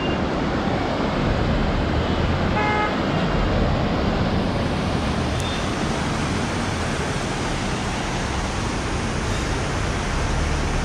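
Steady rush of a fast mountain river over rocks, with a short car horn toot about three seconds in.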